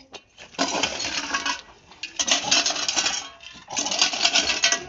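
Three bursts of clinking, rattling noise, each about a second long.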